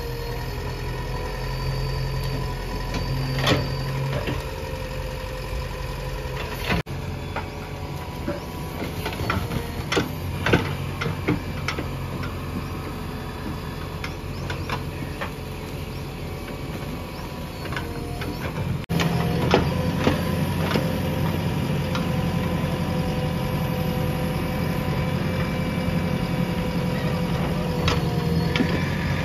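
JCB 3DX backhoe loader's diesel engine running steadily with a whine from the machine, while the backhoe bucket breaks down a brick wall: repeated knocks and clatter of bricks and rubble falling. The engine gets louder about two-thirds of the way through.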